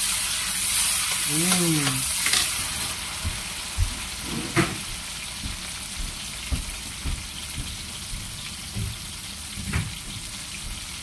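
Chopped chilies, garlic and shallots sizzling in hot oil in a wok, stirred with a metal spoon that clicks and scrapes against the pan. The sizzle is loudest in the first few seconds, just after the chilies go in, then settles down.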